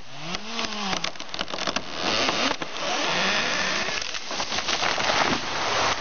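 A chainsaw revs up and down briefly. Then come a run of sharp wood cracks and a long rushing crash of branches and leaves as a large felled tree goes over.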